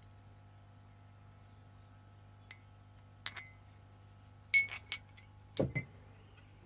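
Metal hand tools clinking as they are handled and set down: a light clink, then a few sharper clinks in quick succession and a heavier knock near the end, over a faint steady hum.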